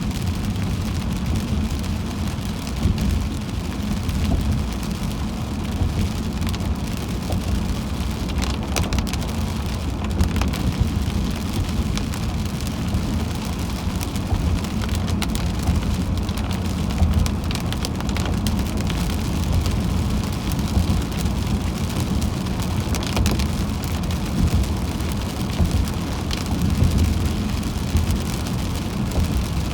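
Heavy rain falling on a moving car, with scattered sharp drop taps over the steady low rumble of the car travelling on a wet road.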